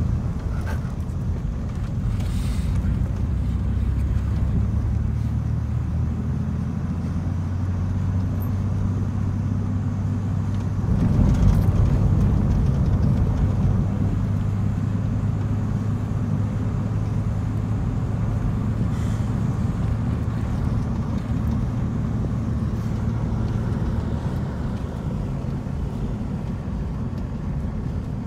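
Road and engine noise inside a moving car's closed cabin: a steady low drone that swells for a few seconds about eleven seconds in.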